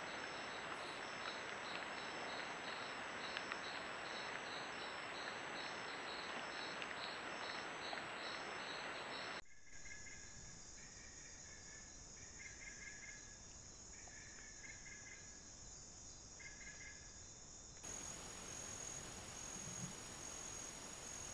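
Night insect chorus of crickets and other insects: steady high trills with rhythmic pulsed chirping, over a hiss in the first part. The mix changes abruptly twice, about nine and eighteen seconds in.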